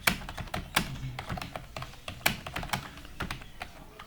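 Typing on a computer keyboard: quick, irregular key clicks, several a second, with a few louder keystrokes.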